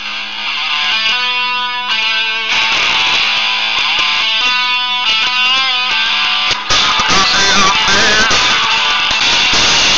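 A guitar-led song playing from a BlackBerry Curve's music player through its speaker. It grows fuller about seven seconds in.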